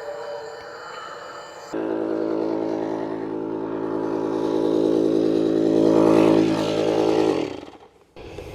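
An electric air pump switches on abruptly, runs with a steady motor hum that grows louder, then is switched off and spins down near the end.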